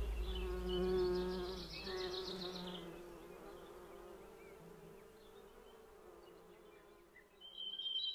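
An insect buzzing, fading out over about three seconds. Near the end, high chirping tones start.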